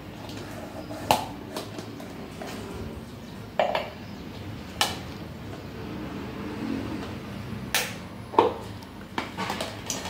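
Ceiling fan parts being handled, the motor housing and downrod knocking and clicking against each other: about half a dozen sharp clacks at uneven intervals, the loudest about a second in and again near the end.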